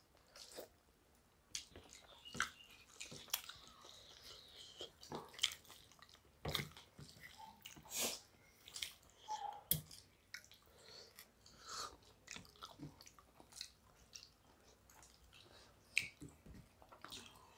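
Close-miked eating sounds of two people eating rice and chicken curry with their hands: irregular wet chewing and lip smacks, with soft squishes as the rice is mixed by hand on steel plates.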